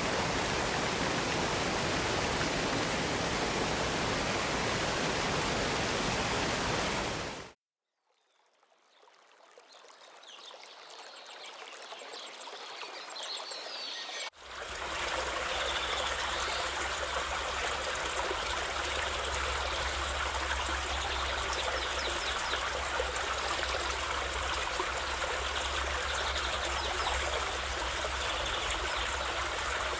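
Water of a tall cascading waterfall rushing over rocks in a steady, even rush. It cuts to silence about seven seconds in, comes back faint and slowly grows louder, then returns at full level about halfway through with a deep low rumble beneath it.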